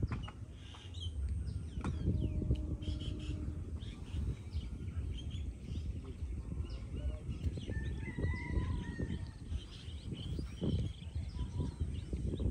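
Outdoor bird ambience: many short bird chirps and calls, with one longer held call about eight seconds in, over a steady low rumble.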